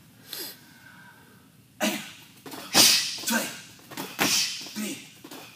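Punches and kicks smacking into a handheld kick shield: a quick series of about six or seven sharp slaps beginning about two seconds in, the loudest near the middle.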